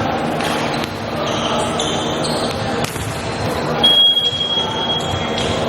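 Indoor volleyball game sounds: the ball being struck and sneakers squeaking on the court over a crowd's steady din, then a long steady blast of the referee's whistle about four seconds in.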